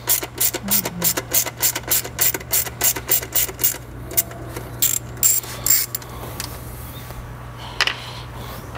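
Socket ratchet with a Torx 30 bit clicking steadily, about four or five clicks a second, as it backs a bolt out of the intake plenum. The clicking stops about four seconds in, leaving a few scattered clicks.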